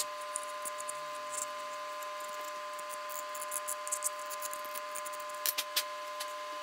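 Light scratchy ticks of a black kydex piece being rubbed edge-down on sandpaper and handled, with three sharp clicks near the end, over a steady electrical hum.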